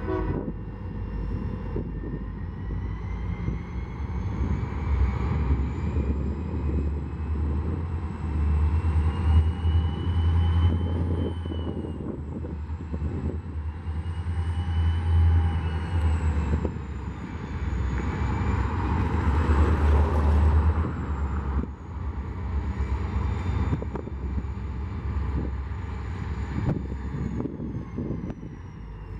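Heavy engine running: a deep, steady rumble with a high whine that slowly rises and falls in pitch.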